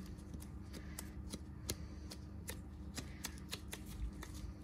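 Gloved hands pressing and shaping a stiff, dense paste: irregular light clicks and rustles of the gloves against the paste.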